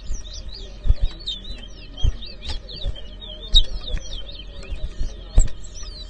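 Two caged towa-towa seed finches whistling against each other: a fast, unbroken run of short, high whistled notes that rise and fall. Four dull thumps, near 1, 2, 3.5 and 5.5 seconds, are louder than the birdsong.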